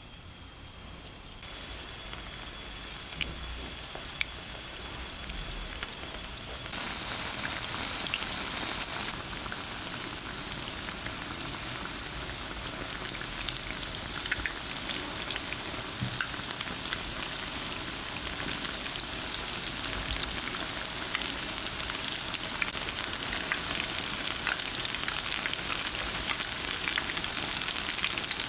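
Corn-starch-coated potato cheese sticks shallow-frying in oil in a pan: a steady sizzling hiss with scattered crackles and pops. It starts faint and gets louder about seven seconds in, as the oil bubbles hard around the sticks.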